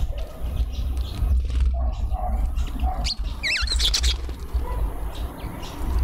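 Small songbirds at a feeder chirping, with one wavering, warbling call about three and a half seconds in, over a steady low rumble.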